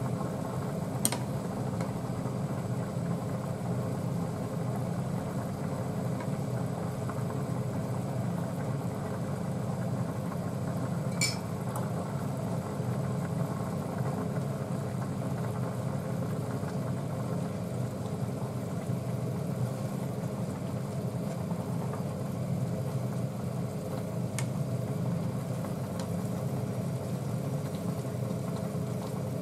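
Steady mechanical hum of a kitchen fan while a saucepan heats on an induction hob, with three sharp taps of utensils against the aluminium saucepan: about a second in, near the middle, and toward the end.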